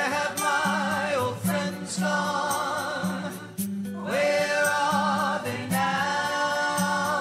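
A song plays over closing credits: long, wavering sung notes in two phrases over a bass line that steps from note to note.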